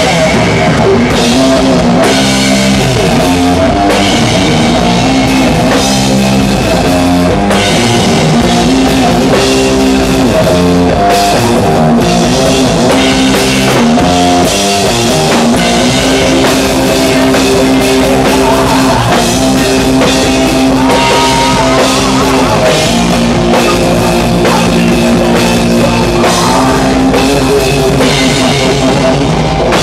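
A doom metal band playing live and loud: distorted electric guitar riffs with long held chords over bass and a full drum kit with crashing cymbals.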